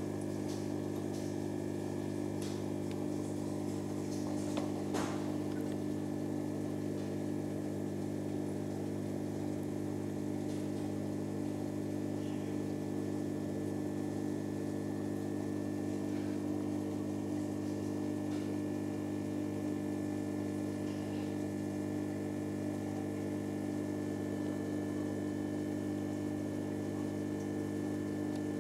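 Steady electric hum of aquarium equipment such as an air pump or filter, holding one even pitch with overtones, with a few faint clicks about four to five seconds in.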